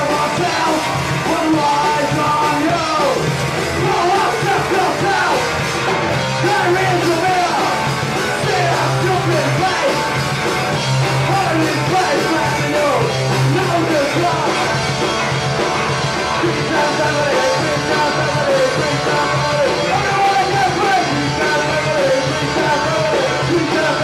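A rock band playing live at a steady, loud level: drum kit and amplified guitars, with a singer's voice over them.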